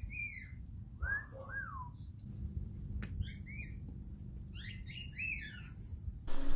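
Bird calls: several short chirps that rise and fall in pitch, coming in little groups of two or three, over a low steady background hum.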